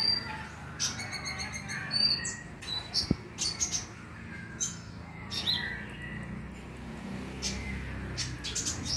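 Kolibri ninja (a sunbird) singing: a run of quick, very high chirps and short rapid trills in scattered phrases, with a steady low hum underneath.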